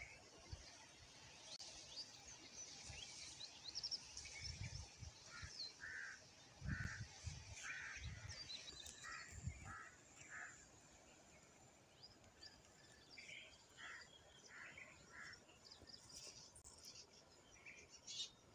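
Faint bird calls: quick high chirps in the first few seconds, then strings of short repeated calls. A few soft low thumps come in the middle.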